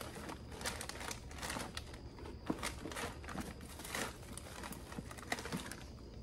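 Plastic bait packs crinkling and rustling as hands rummage through a bag of soft-plastic crawfish baits. The crackle is irregular and stops shortly before the end.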